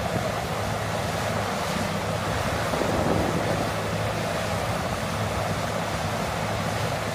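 Caterpillar 6015B hydraulic mining excavator running as it digs rock, a steady low engine hum under a constant rush of wind noise on the microphone.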